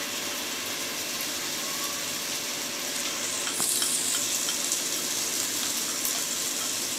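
Food sizzling in hot oil in a non-stick frying pan as garlic chilli sauce is added. The sizzle grows louder and brighter about halfway through.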